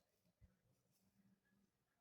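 Near silence: room tone, with one faint soft thump about half a second in.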